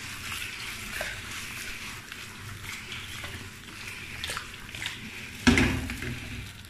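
Sliced potatoes and onion sizzling in oil in a frying pan as the pan is shaken and tossed over a gas flame, the slices sliding and shuffling against the pan. A louder knock about five and a half seconds in as the pan is set back down on the burner.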